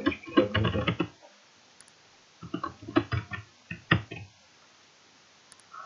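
Computer keyboard typing in two quick bursts of key clicks, each about a second long, with a short pause between.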